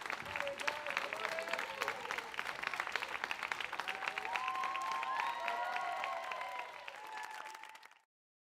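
Audience applauding and cheering at the end of a live song, fading out to silence about eight seconds in.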